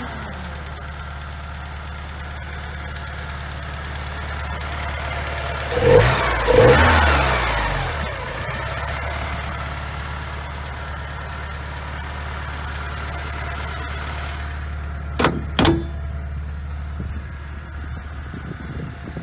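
Porsche 944's freshly rebuilt 2.5-litre four-cylinder engine idling steadily, blipped louder twice about six seconds in. Two sharp knocks near the end as the hood is shut.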